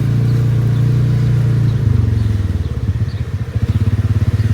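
A car driving: a steady low engine and road rumble with a fine, even pulsing, dropping lower about two seconds in.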